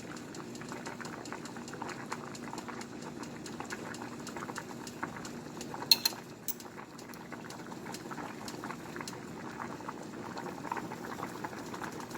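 Liquid bubbling steadily in a pot, a dense stream of small pops and crackles, with two sharp clicks close together about six seconds in.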